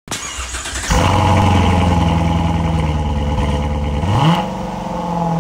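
Car engine running loudly, then revved once about four seconds in, its pitch rising quickly and holding higher.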